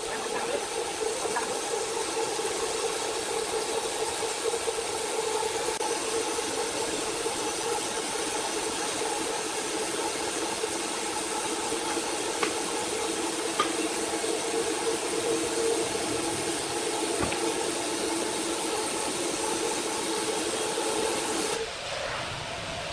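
Sawmill machinery running steadily: a constant hum over a hiss, with a few faint clicks. It changes abruptly to a quieter sound near the end.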